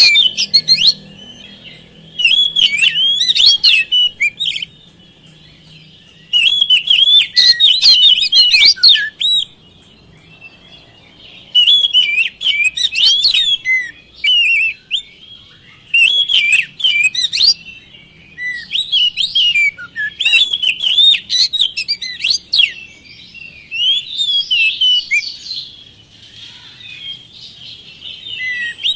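Oriental magpie-robin (kacer) singing: fast, varied whistled phrases, each a few seconds long, repeated about eight times with short pauses between them.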